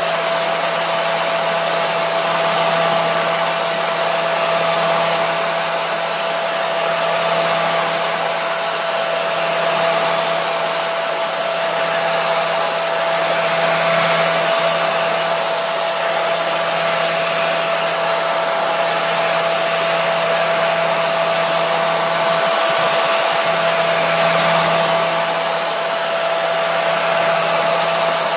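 Hair dryer running continuously: a steady rush of blown air with a constant whine, the loudness swelling gently now and then.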